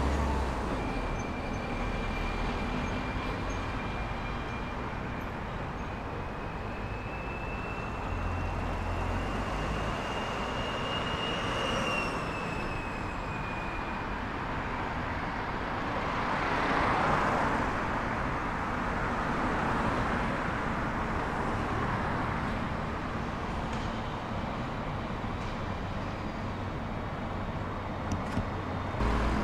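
Street traffic: motor vehicles passing one after another over a steady road noise, with a thin high whine that slowly rises and then falls away, and the loudest pass a little past the middle.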